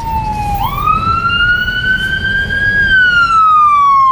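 Emergency vehicle siren wailing: the tone dips, swings up quickly about half a second in, climbs slowly, then falls again. It grows louder as the vehicle approaches, over a low traffic rumble.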